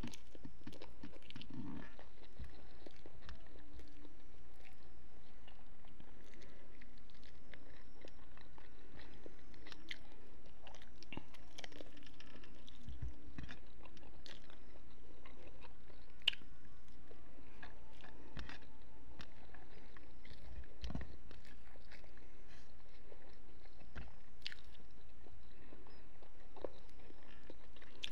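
A person biting and chewing food, with scattered short clicks and crunches from the mouth.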